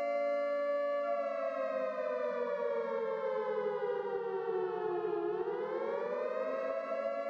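Civil-defence warning siren wailing: its pitch holds for about a second, slides down over about four seconds, then climbs again near the end.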